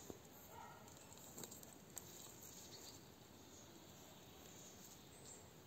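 Near silence: faint outdoor background with a few soft ticks and rustles.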